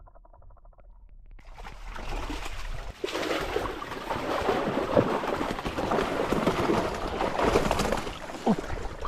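Water sloshing and streaming out of a fishing keepnet's mesh as the net is hauled up out of the water by hand. It starts faint about a second and a half in and gets louder from about three seconds, with scattered splashes.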